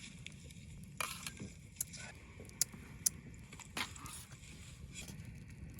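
Scattered clicks, knocks and rustles of small objects being handled, including two sharp ticks about half a second apart near the middle, over a low steady background hum.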